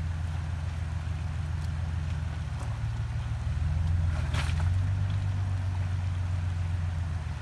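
Truck engine idling steadily, its low note shifting slightly about halfway through, with a brief crunch or scrape about four and a half seconds in.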